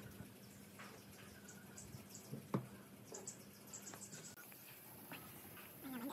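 Faint workbench handling noise: light clicks and ticks as hands move pipe clamps and pine blocks, with one sharper knock about two and a half seconds in.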